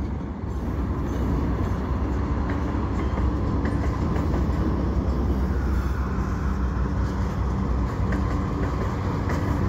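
Freight cars rolling slowly past on yard track: a steady low rumble of steel wheels on rails.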